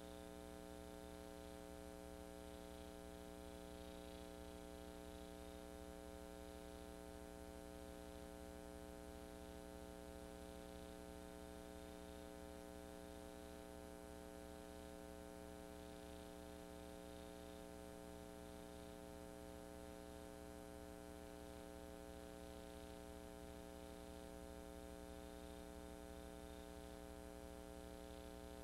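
Steady electrical mains hum with a faint hiss and no other sound; the parade itself is not heard.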